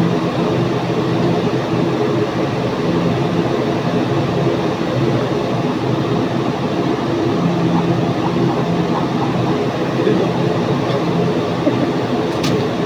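A steady mechanical drone with a low hum running throughout, and a single sharp click near the end.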